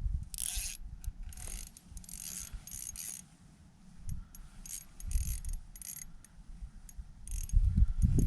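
Ice fishing reel cranked in short bursts while a hooked fish is reeled in, over low wind rumble on the microphone.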